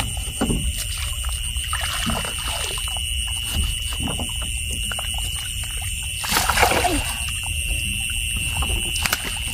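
Steady high-pitched chirring of night insects, one shrill tone with a finer pulsing one above it, over small knocks and light water splashes. A brief voice comes about six seconds in.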